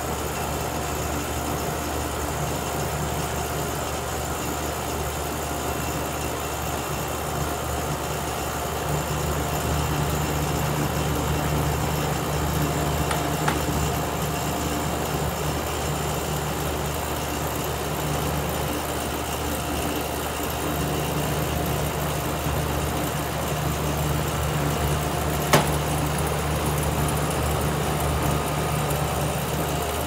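Nordyne air-conditioner condensing unit running during a pump-down, its compressor and condenser fan humming steadily with the liquid line shut, pulling the refrigerant into the condenser. A short click about halfway through and a sharper one near the end.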